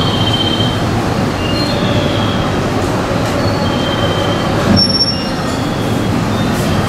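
105-series electric train approaching slowly over curved track and points, its wheels squealing in short high tones over a steady rumble. A brief sharp click or clank comes about three-quarters of the way through.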